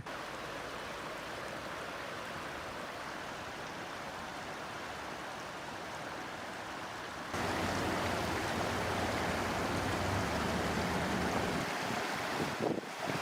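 Rushing floodwater: a steady, even rush of noise that steps up louder about seven seconds in.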